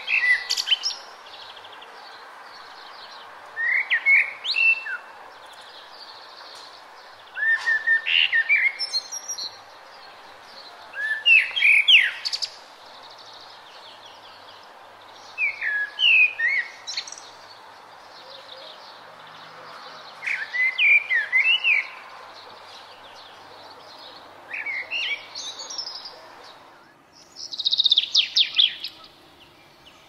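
A songbird singing about eight short, high phrases, each a second or so long, with pauses of a few seconds between them, over a steady background hiss that drops away near the end.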